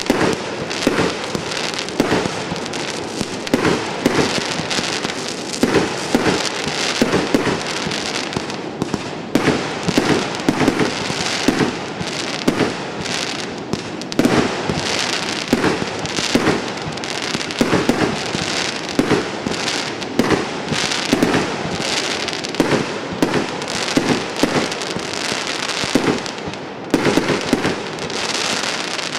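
'Golf Club' firework going off: an unbroken string of sharp shots and bursts, several a second, over a continuous crackling hiss.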